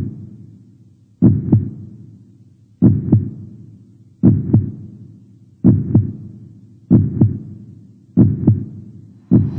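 Heartbeat sound effect: deep paired lub-dub thumps, about one every one and a half seconds, gradually quickening.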